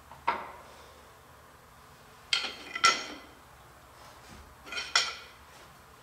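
Steel tools and parts clanking against the metal of a horizontal boring mill's spindle head: four sharp metallic clanks, each ringing briefly, one near the start, two close together in the middle and one near the end.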